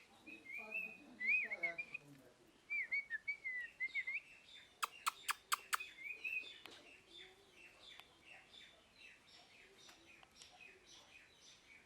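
Parrot chirping and warbling in short twisting whistles, then a quick run of five sharp clicks about five seconds in, followed by fainter, rapid, repeated chirps.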